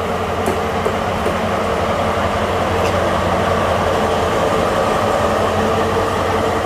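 DB class 218 diesel-hydraulic locomotive rolling slowly past at close range, its engine running with a steady hum and a constant tone over it.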